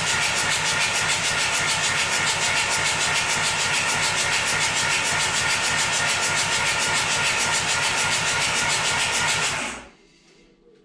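Starter motor cranking a freshly swapped-in VW 1.9 TDI diesel engine, a steady rhythmic churning with a whine, on its first start attempt. It runs for about ten seconds and stops abruptly near the end without the engine catching.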